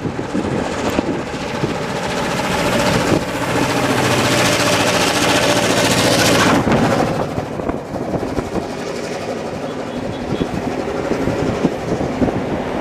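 Passenger train hauled by a diesel locomotive passing close below: the locomotive's engine drone and rush of noise build to a peak and fall away about two-thirds through, leaving a lower rumble and a rapid clatter of wheels over the rail joints as the carriages roll past.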